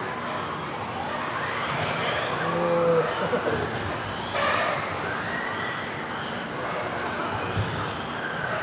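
Several electric radio-controlled off-road racing cars lapping a track, their motors whining up and down in pitch as they speed up and slow down, with tyre noise echoing around the hall.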